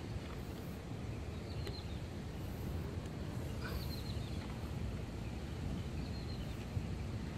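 Outdoor ambience: a steady low rumble with a few short, high bird chirps scattered through it.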